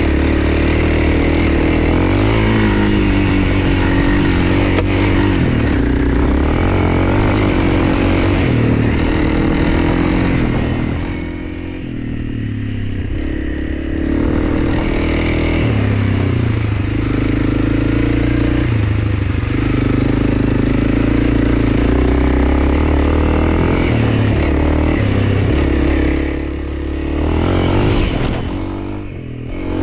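Honda CRF300L's single-cylinder four-stroke engine pulling steadily while being ridden, its pitch shifting with the throttle; the engine eases off around the middle and twice more near the end before picking up again.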